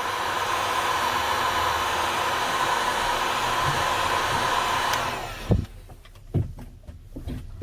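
Heat gun blowing steadily with a whine, heating the earpiece flex to soften its adhesive. It switches off about five seconds in, and a few soft knocks follow.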